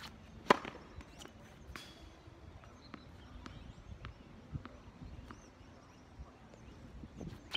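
Tennis serve: the racket strikes the ball once, sharply, about half a second in. After it there are only faint scattered ticks.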